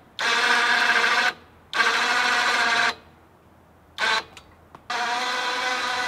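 Winch motor whining as it drags a log up to a log arch, run in short pulls: two pulls of about a second each, a brief blip, then a steady pull from about five seconds in.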